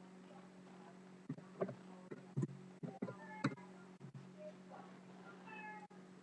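A cat meowing in short calls, a few about three seconds in and again near the end, over a steady low electrical hum, with a few sharp clicks and taps.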